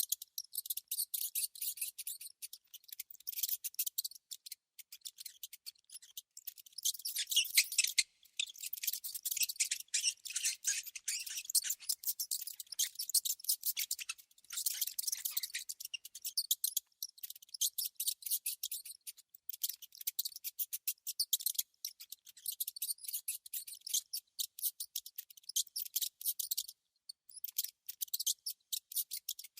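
Mice or rats making rapid high-pitched clicking and chittering sounds in dense clusters, broken by short pauses.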